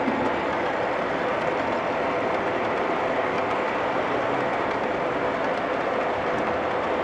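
O scale two-rail model freight train, led by a Union Pacific SD45 on scale wheels, running past with a steady, even rolling noise of wheels on the rails.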